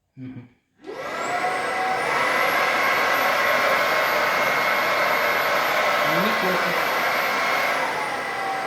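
Womow W20 cordless stick vacuum switched on: its motor spins up about a second in and runs with a steady rushing noise and a high whine. The whine steps up in pitch about two seconds in and drops back near the end. Not very loud.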